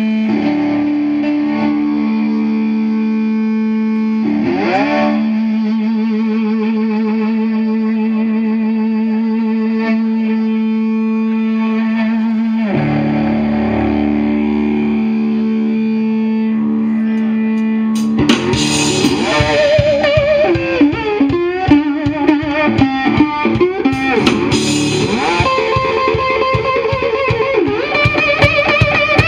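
Live blues band playing at loud, amplified volume: a distorted electric guitar holds long sustained notes with bends. About eighteen seconds in, the full band with drums comes in with busier, rhythmic playing.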